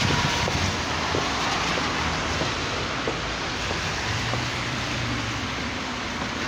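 Steady rushing street noise from passing traffic, with wind on the microphone.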